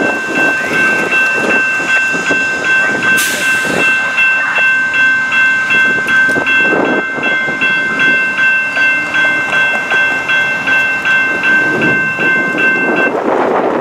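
Railroad grade-crossing bell ringing rapidly, about three strokes a second, over the rumble of a departing Amtrak Downeaster passenger train. There is a short hiss about three seconds in, and the bell stops near the end as the crossing gates rise.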